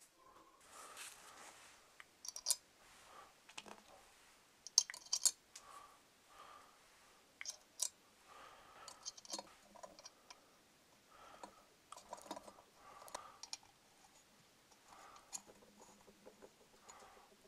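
Light irregular clicks, taps and short scrapes of small wooden and metal parts being handled and fitted together by hand on a workbench. The parts are an iron's turned oak handle and its painted metal handle bracket.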